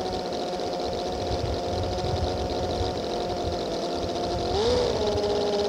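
Working scale model of a Rolls-Royce Merlin V12 aero engine running with a steady note. About four and a half seconds in it revs up briefly, then settles at a slightly higher speed.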